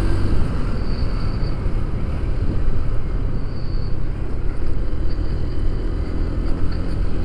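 Motorcycle riding at a steady cruise: the engine runs evenly under a constant low rumble of wind and road noise on the microphone.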